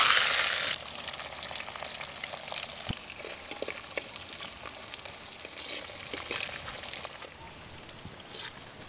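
Sliced shallots and curry leaves sizzling in hot oil in a clay pot on a wood fire, loud for about the first second as they go in, then settling to a steady, quieter sizzle with small crackles as they are stirred.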